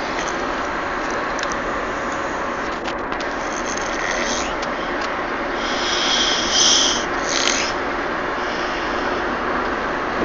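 Steady road and engine noise inside a moving car's cabin, with a sleeping baby snoring: two brief, high, raspy sounds a little past halfway, the first longer and louder.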